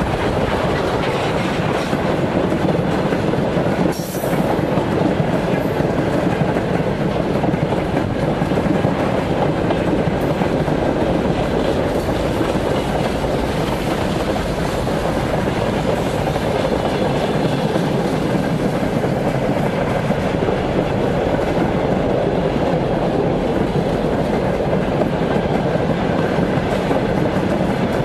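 Long broad-gauge freight train of loaded tank containers, tank wagons and open wagons rolling past close by: a steady rumble with wheels clattering on the rails.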